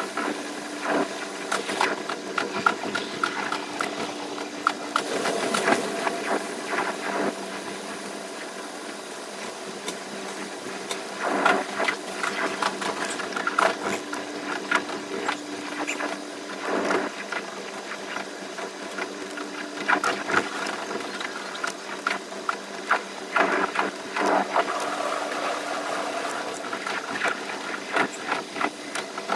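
Running noise of a JR West 283 series electric limited express train heard from the cab, sped up fivefold. A steady hum sits under a dense, fast clatter of clicks from the wheels on the track.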